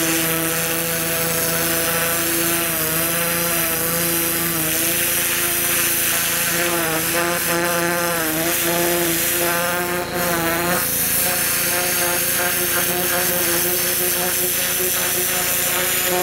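A pressure washer runs steadily, its motor humming under the hiss of the turbo-nozzle spray as the water jet hits a skinned carcass. The hum wavers in pitch for a few seconds around the middle, with a brief dip just past halfway.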